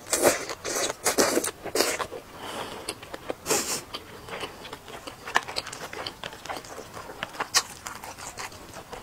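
Close-miked chewing and wet mouth sounds: a bite of chicken taken from chopsticks, then chewing. There are many short smacks and clicks, busiest in the first two seconds, then sparser.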